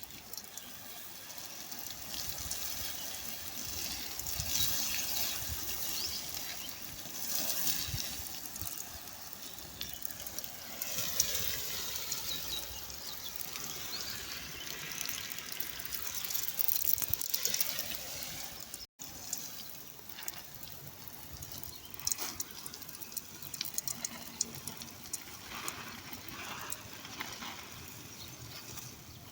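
Water running into a container, the tone rising as it fills. After a break about two-thirds of the way through, a quieter stretch of scattered clicks and knocks follows.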